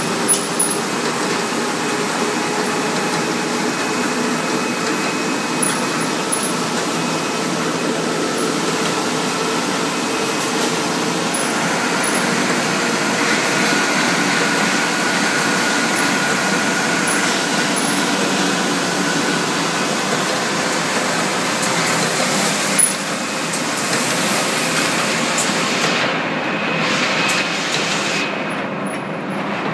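Industrial paper-handling machine with a conveyor carrying stacks of paper, running with a steady mechanical noise. A few sharp clicks come near the start, and a louder one about two-thirds of the way through.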